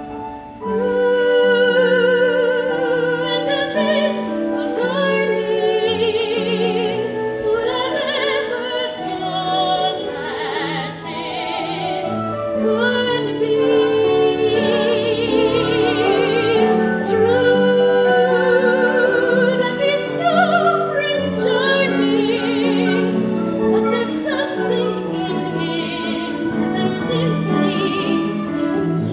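A woman's voice singing a musical-theatre song with vibrato and long held notes, over instrumental accompaniment.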